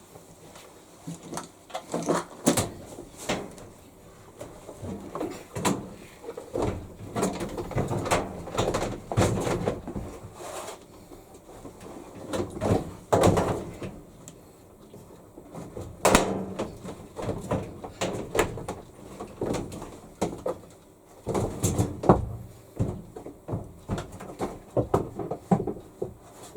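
Washing tub of a Hitachi Beat Wash BW-V80C washer being lowered into the outer tub and turned to find the fit on its squarish centre hub: many irregular knocks, clunks and scrapes of the tub against the housing.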